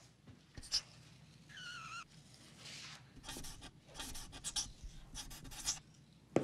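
Dry-erase marker drawing on a whiteboard in a series of short strokes, with a wavering squeak about one and a half seconds in.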